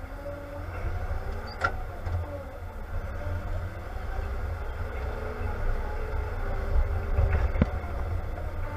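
A John Deere tractor's diesel engine running steadily as it drives slowly, heard from inside the cab as a low rumble. Two sharp clicks come from the cab, one near the start and one near the end.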